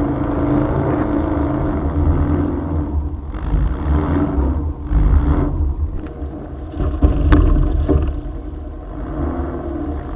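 Air-cooled Volkswagen flat-four engine running under load while the car pushes through snow, its pitch rising and falling, with stretches of rushing noise in the middle.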